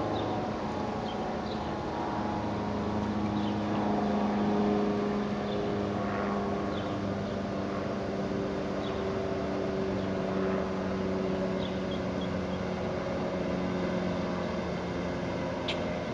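A steady engine drone with a low hum throughout. A few faint short high peeps are scattered through it, and a short click comes near the end.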